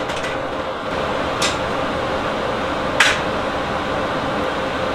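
Steady background hum with a few short metal clicks as steel frame parts, a pin and a pivot bracket, are fitted together by hand. The sharpest clink comes about three seconds in.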